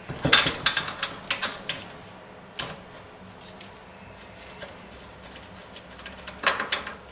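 Metal hand tools clicking and clinking while the spark plug is being taken out of the engine: a quick run of clicks in the first two seconds, a lone click, then a short clatter near the end.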